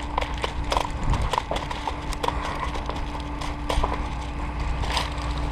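Scattered sharp clicks and knocks, irregular and several a second, over a steady low hum.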